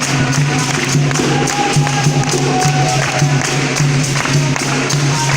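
Capoeira roda music: a steady rhythm of pandeiro tambourine strikes over a pulsing low tone, with voices faintly singing.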